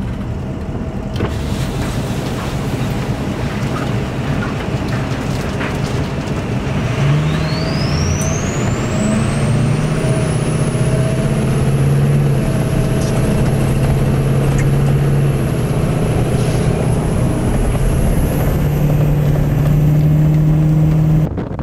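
A car driving through strong wind: a loud, steady rush of wind and road noise under a low engine hum. About seven seconds in, a thin high-pitched whine rises over a few seconds, then holds and steps a little higher near the end.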